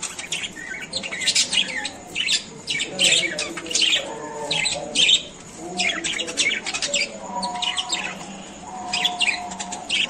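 Budgerigars chattering: a rapid run of short, sharp high chirps and squawks, with a lower warbling mixed in around the middle and again near the end.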